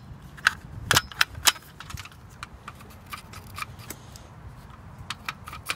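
Light plastic-and-metal clicks and rattles of a removed truck door handle assembly being handled, with a few sharper clicks in the first second and a half, then sparser ones.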